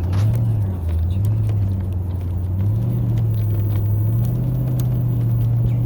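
Vehicle engine running under load while towing a sled through snow. It rises and dips in pitch, then picks up about a third of the way in and holds a steady higher note.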